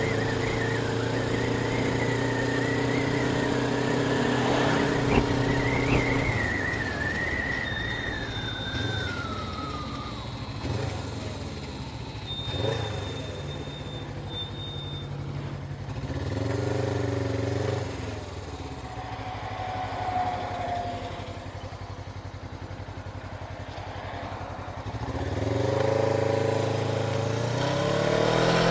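Motorcycle engine heard from the rider's seat with wind rushing over the microphone: it runs steadily, then winds down in pitch as the bike slows. After a quieter stretch with a couple of brief swells of throttle, it climbs in pitch near the end as the bike accelerates away.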